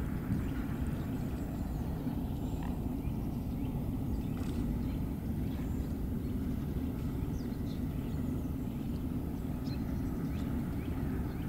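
A steady low rumble of outdoor ambience, with faint, short, high bird chirps scattered over it.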